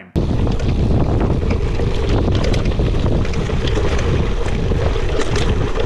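Carbon gravel bike ridden over a rough dirt trail: steady tyre rumble and wind buffeting the microphone, with frequent small clattering knocks of the chain slapping the low-dropped chainstay over the bumps.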